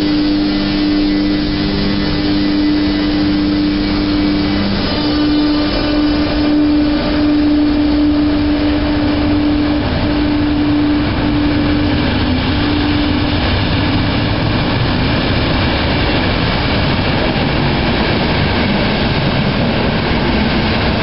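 Electric locomotive hauling a passenger train past the platform: a steady electrical hum that stops about thirteen seconds in, over the continuous rumble of the coaches rolling by on the rails.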